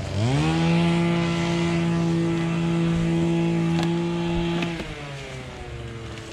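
An engine revs up quickly, holds a steady high speed for about four seconds, then drops back to a lower, quieter running speed. A couple of sharp clicks are heard near the end of the high-speed stretch.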